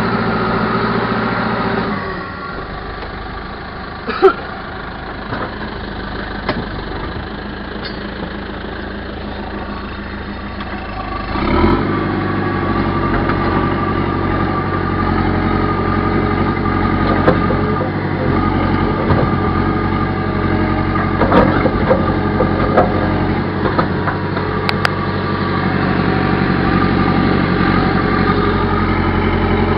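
Backhoe engine running: it drops to a lower, quieter speed about two seconds in, then picks up again and runs steadily louder for the second half. A single sharp knock sounds about four seconds in.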